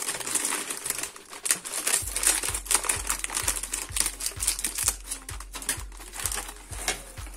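Scissors cutting open a crinkly plastic snack packet: a quick run of sharp snips and clicks with wrapper crinkling. A soft low beat comes in about two seconds in.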